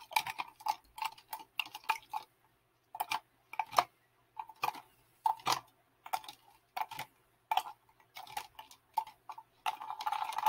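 Ice cubes and a straw clicking and knocking against a plastic cup as a drink over ice is stirred, in short irregular clinks that come quicker near the end.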